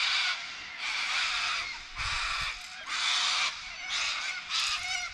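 Loud, harsh, screeching bird calls, repeated about five times, each lasting roughly half a second to a second.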